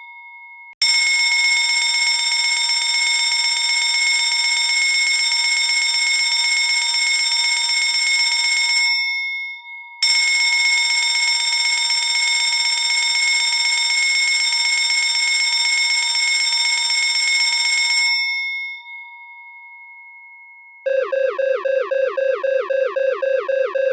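Electric alarm bell ringing continuously in two long bursts of about eight seconds each, its tone ringing on for a moment after each stop and fading for a couple of seconds after the second. Near the end a different electronic alarm starts: a fast run of repeating falling tones.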